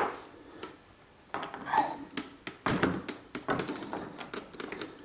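Marshall JVM 410 amplifier head being handled and set back in place: a sharp knock at the start, then a scattered run of taps, clicks and light thuds.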